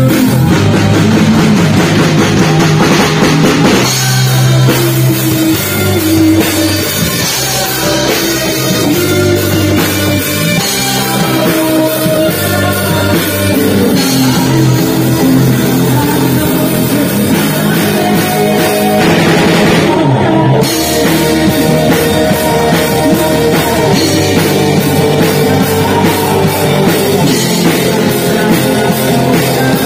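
Live rock band playing loud: drum kit, electric guitar, bass guitar and keyboard together with a steady beat.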